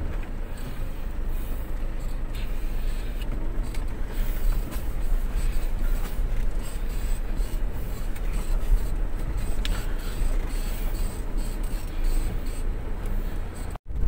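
Vehicle driving, a steady low rumble of engine and tyres on the road. The sound cuts out for an instant near the end.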